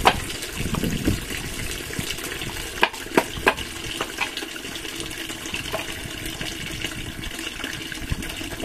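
Steady hiss of running water, with a few sharp knocks about three seconds in from cassava roots being peeled.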